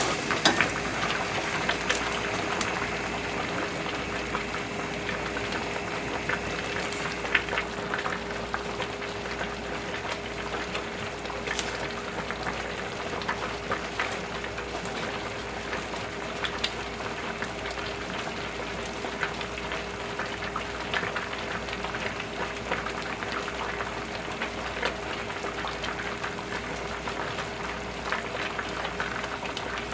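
Two large stainless-steel stockpots of pork-bone soup boiling on gas burners: a steady bubbling with a crackle of many small pops, over a steady hum.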